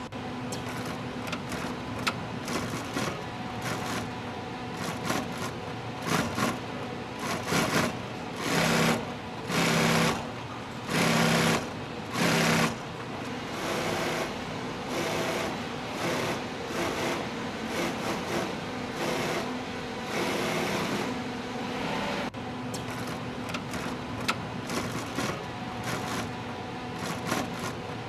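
Industrial sewing machines stitching leather upholstery, running in short bursts of rapid stitching with brief pauses between; four louder bursts come close together about a third of the way in.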